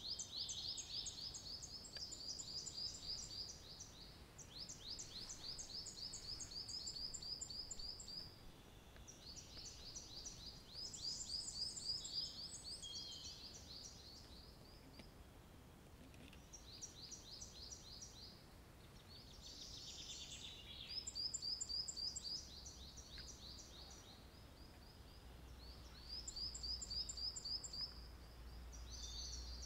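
Small songbirds singing: long phrases of rapid, repeated high notes, one song after another with short gaps. A low rumble comes in near the end.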